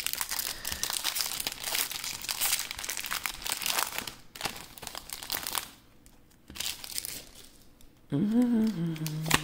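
Foil Pokémon booster-pack wrapper crinkling as it is handled, loudest over the first four seconds and again briefly around the middle, then quieter. A person's voice sounds briefly near the end.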